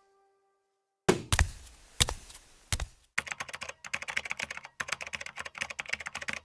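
Sound effects for an animated subscribe graphic: after a second of silence, four separate sharp thumps, then fast, irregular clicking like keys being typed.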